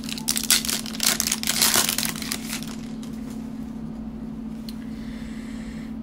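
Cellophane wrapper of a trading card cello pack crinkling and tearing as it is pulled open, with dense crackling for about the first two and a half seconds. After that only a steady low hum remains.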